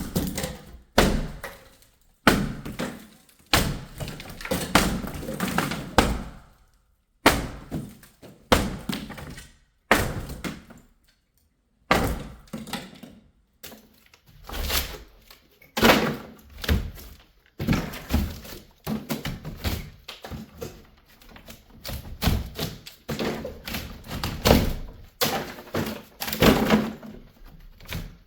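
Repeated heavy thuds and knocks at an irregular pace, as walls and ceilings are torn out of a house down to the studs.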